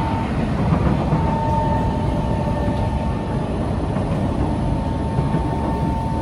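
Kawasaki C151 metro train running at speed, heard from inside the carriage: a steady rumble of wheels on the rails, with a thin high whine that fades in and out.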